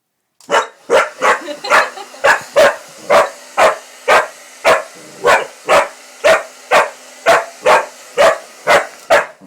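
Pitbull-corgi mix barking about twice a second in a long, steady run at a running hair dryer, whose steady whir sits under the barks.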